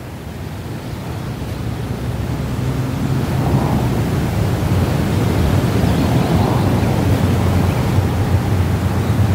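A low, steady rumbling noise that slowly grows louder.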